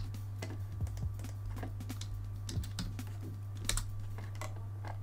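Computer keyboard typing with mouse clicks: scattered, irregular key and button clicks as values are entered, over a steady low hum.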